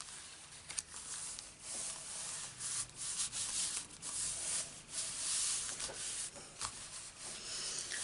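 Hands rubbing and pressing an embossed cardstock panel flat onto a card base: a run of irregular papery swishes with a few small clicks.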